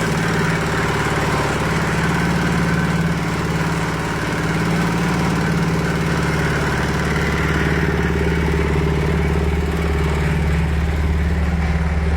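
A 200 kg-capacity livestock feed mixer running steadily on a test run, its drive engine holding one even pitch.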